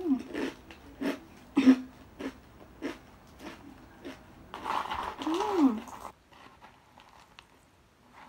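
Crispy fried macaroni snack being crunched and chewed close to the microphone, with sharp crunches about every half second. About five seconds in comes a short hummed voice sound whose pitch rises and falls, and the chewing goes quiet soon after.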